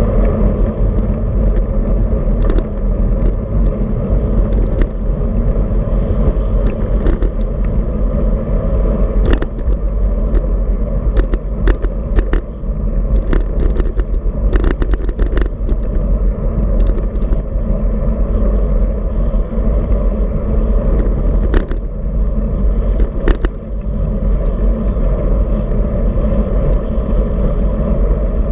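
Steady wind noise on a handlebar-mounted camera's microphone on a moving road bike, with tyre noise on the asphalt. Sharp clicks and rattles come at scattered moments, clustered in the middle, as the bike rolls over cracks and bumps in the pavement.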